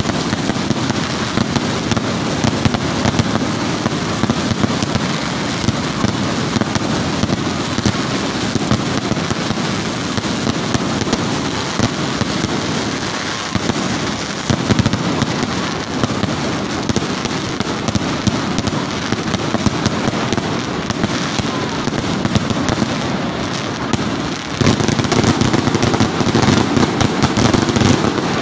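Fireworks going off in rapid succession: a dense, continuous crackle of bursts and launches, stepping up louder a few seconds before the end.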